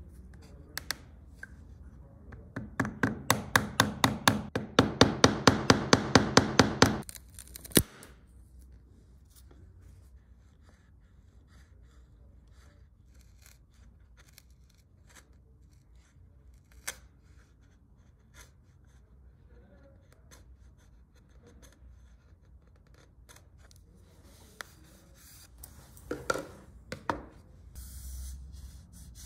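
Hand-tool work on a workpiece: a run of quick, even rubbing strokes, about six a second, lasting about four seconds, then scattered light clicks and taps, with a few more strokes near the end.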